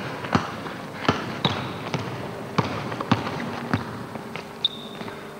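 A basketball being dribbled on a hardwood gym floor during one-on-one play, bouncing about every half second, with two short high squeaks.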